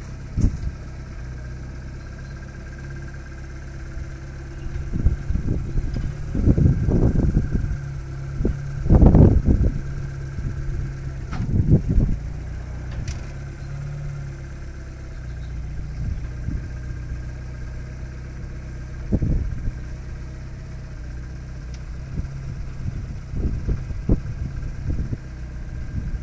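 Small narrow-gauge locomotive's exposed engine running steadily at a low, even speed, with irregular louder rumbling bursts now and then.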